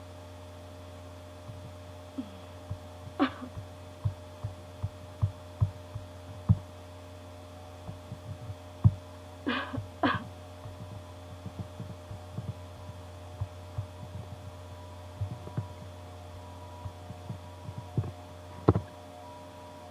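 Irregular clicks and taps of typing on a laptop keyboard and clicking its mouse or trackpad, picked up by the laptop's built-in microphone over a steady low hum.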